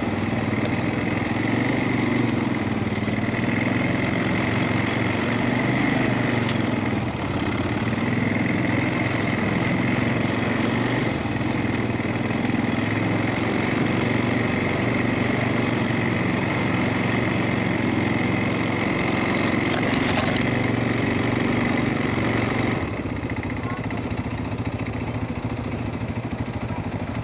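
CFMOTO ATV engine running at low speed with a steady, slightly wavering note, getting quieter near the end.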